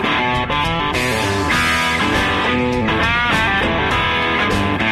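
Background rock music led by guitar, with a few bent notes sliding up in pitch about three seconds in.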